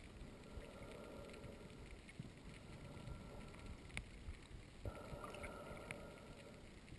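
Faint, muffled underwater sound picked up through a GoPro's waterproof housing: a low hiss with a few sharp clicks, and a faint steady tone coming in about five seconds in.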